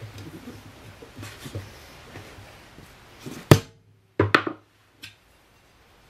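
Metal tire irons levering a motorcycle tire's bead over an alloy rim by hand: low scraping and rubbing, then a sharp metallic clank about three and a half seconds in and a quick cluster of loud clanks just after, with one small click following.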